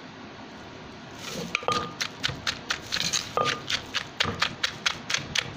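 Wooden pestle pounding cherry tomatoes with garlic and chillies in a mortar, crushing them for Thai papaya salad (som tam) dressing. The pounding starts about one and a half seconds in, at about four strikes a second.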